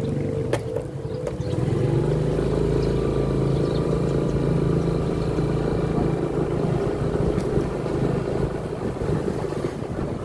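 Motorcycle engine running as it is ridden along a street, the hum getting louder about a second and a half in.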